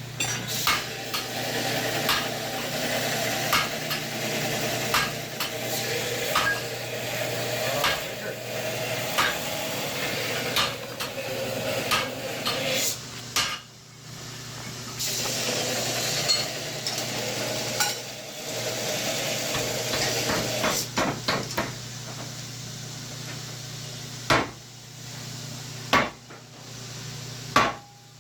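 Blacksmith's hammer striking hot steel on an anvil in irregular blows, over a steady hiss that stops twice; the last few seconds hold fewer, separate strikes.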